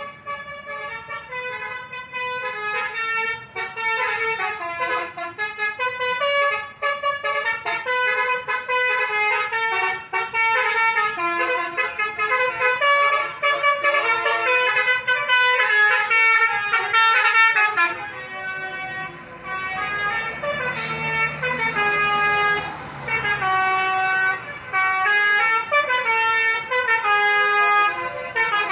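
Bus 'telolet basuri' multi-tone musical horn playing a melody of quick stepping notes, one tune running into the next. A low vehicle hum sits under it in the latter part.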